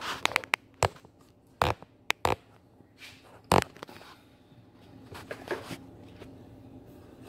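A run of short, sharp knocks and taps in the first half, the loudest about three and a half seconds in, followed by a few softer rustles.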